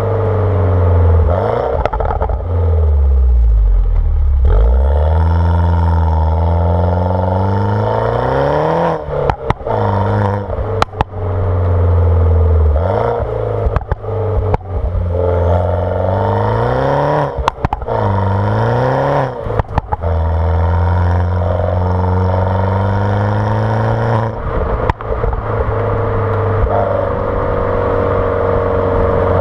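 R56 Mini Cooper S's turbocharged 1.6-litre N14 four-cylinder through a JCW exhaust with the catalytic converter removed, revving up and falling back again and again under hard acceleration and lift-off. Sharp crackles and pops from the exhaust come several times as the revs drop off the throttle.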